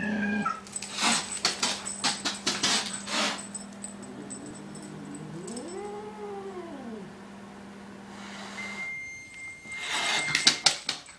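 Siamese cat yowling: a long caterwaul that rises and falls in pitch about five to seven seconds in, after a short cry at the start. Bursts of scuffling, clattering noise come around one to three seconds in and again, loudest, near the end.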